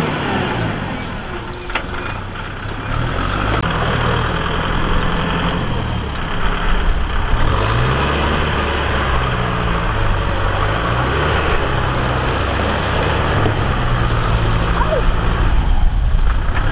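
Kubota M6040 tractor's diesel engine running steadily under work, its pitch wavering up and down as the engine speed changes.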